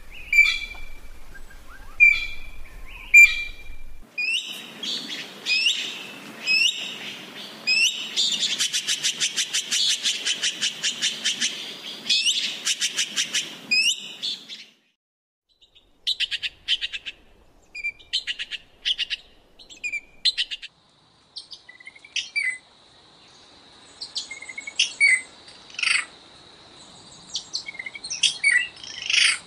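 Red-billed blue magpies calling: sharp calls about once a second, then a busier stretch with a fast chattering run of many short notes, and after a short pause scattered short calls. A steady high tone sits under the calls near the end.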